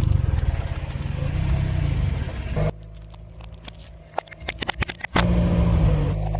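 Car engine running steadily. It cuts off abruptly about two and a half seconds in to a stretch of irregular crackling and crunching clicks, as a tyre crushes brittle objects, then the engine sound comes back near the end.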